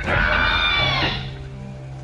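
Velociraptor sound effect: a high screeching call lasting about a second, falling slightly in pitch, over a steady low musical drone.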